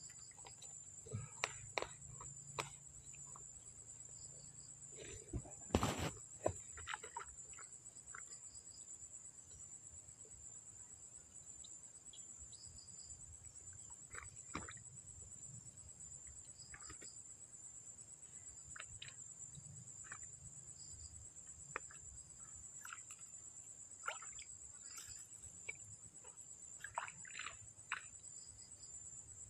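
A steady high-pitched insect chorus, like crickets, runs throughout. Scattered faint clicks and knocks sound over it, with a louder knock about six seconds in.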